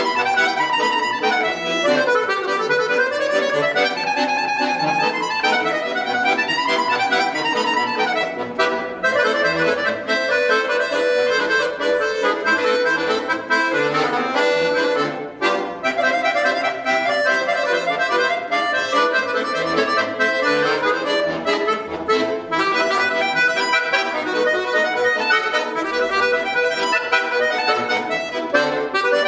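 Bayan, a Russian chromatic button accordion, played solo: a continuous flow of sustained notes and chords, with a brief pause about halfway through.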